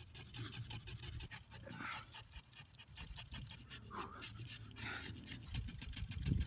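A man panting and letting out a few strained, breathy exhales while working a wooden fire-drill stick by hand. Rough wood-on-wood rubbing picks up near the end as he starts drilling again.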